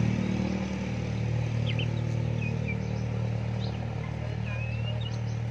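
A motor engine idling steadily with a low, even hum. A few short, faint high chirps come through over it.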